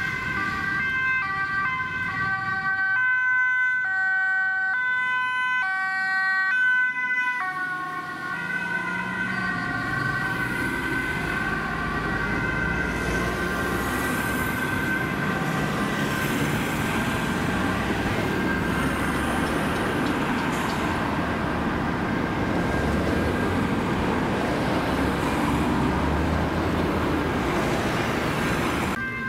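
Ambulance two-tone siren, stepping back and forth between a high and a low tone. From about eight seconds in the alternating tones fade into a steadier siren tone, and the noise of road traffic and engines grows underneath.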